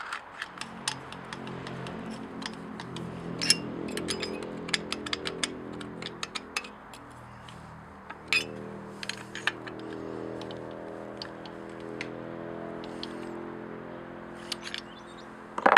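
Scattered small metal clicks and clinks as the chainsaw's cylinder bolts are threaded in by hand and with a hand tool, over a faint steady hum.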